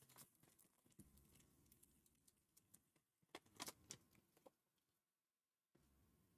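Near silence with faint clicks and flicks of a stack of trading cards being sorted through in the hands, including a short cluster of slightly louder card snaps about three and a half seconds in.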